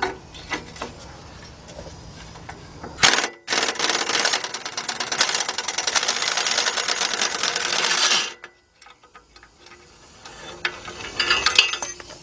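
Impact wrench hammering a 14 mm bolt loose: a short burst, then about five seconds of steady rapid hammering that cuts off suddenly, followed by a few light clicks.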